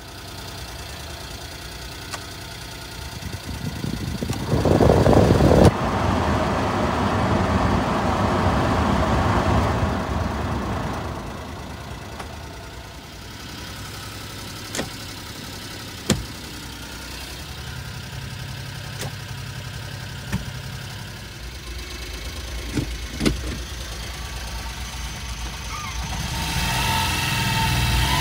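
Suzuki Carry DD51B kei truck's small three-cylinder engine running, louder and revving about five seconds in, then settling to a steady idle. Several sharp clicks come midway, around the 4WD transfer lever, and the engine note rises again near the end.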